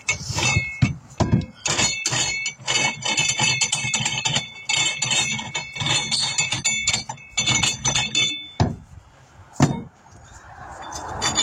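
Hand spray bottle squirted over and over in quick strokes, about three a second, with high ringing clicks from the trigger, spraying soapy water onto a tire bead to check it for air leaks. It stops about eight seconds in, leaving a few single clicks and a soft rising hiss.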